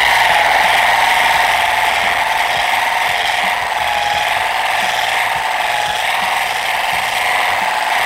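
Rotary buffer running steadily with a foam pad pressed against car paint, polishing with a fine-cut compound. Its motor gives a high, steady whine that wavers slightly in pitch as the pad is worked across the panel.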